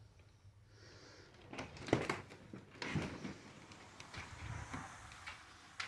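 A house door being opened: the brass doorknob and latch clicking and the door knocking as it is pulled open. Several sharp clicks and knocks come with some rustling, the loudest about two seconds in and another about three seconds in.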